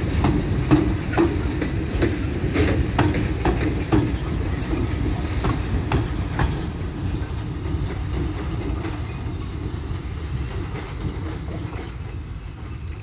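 Diesel-electric freight locomotive rumbling as it rolls past close by, its wheels clacking sharply over the rail joints, most densely in the first half. The sound then fades gradually as it pulls away with its cars.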